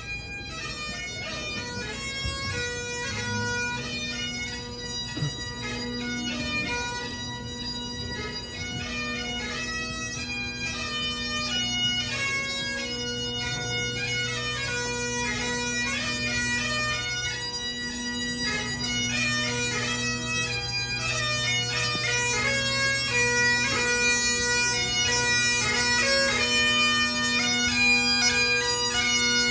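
Bagpipes playing a processional tune over steady drones, growing gradually louder.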